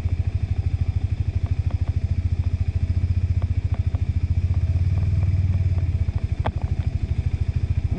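KTM 390 Adventure's single-cylinder engine running at low, steady revs as the bike rides slowly, easing off briefly just after six seconds, with one sharp knock about six and a half seconds in.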